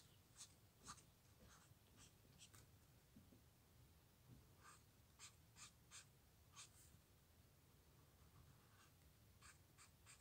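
Faint scratching of an alcohol marker's tip stroking across paper while colouring in: short, irregular strokes, several in quick succession about five to seven seconds in and again near the end.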